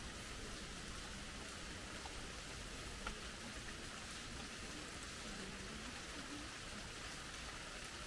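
Steady rain falling, an even hiss without let-up.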